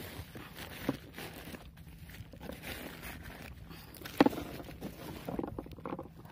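A large fish being handled and freed by hand from a fishing net on a boat: rustling of net and sacking, with a light knock about a second in, a sharp knock about four seconds in, and a few lighter knocks shortly after.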